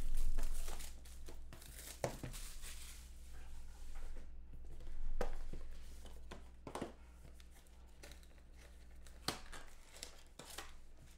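Plastic shrink wrap being torn and crinkled off a sealed cardboard trading-card box, with the box handled and opened: several short bursts of rustling, the loudest near the start.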